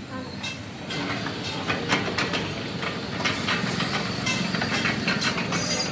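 Steel sheet clanking and rattling on a three-roll plate-rolling machine as it is bent into a rim band, a busy run of metallic knocks over a steady mechanical rumble. It gets louder about a second in.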